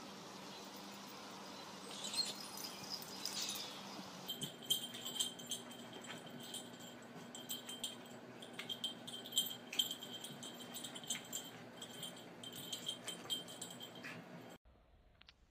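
Rapid light jingling and clicking, like a small bell or rattle, over a steady low hum; the jingling starts about four seconds in and cuts off suddenly near the end.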